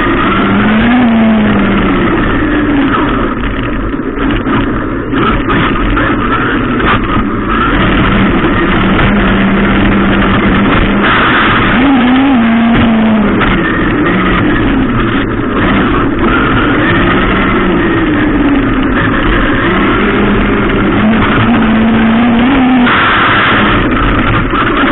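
Traxxas Unlimited Desert Racer RC truck running, its motor pitch rising and falling again and again with the throttle over a steady rush of wind and tyre noise.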